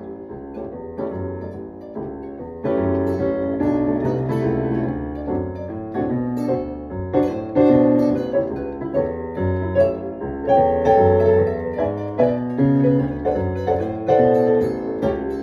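Keyboard music, piano-like chords over changing low notes, with a quieter, sparser stretch at first that fills out and grows louder about two and a half seconds in.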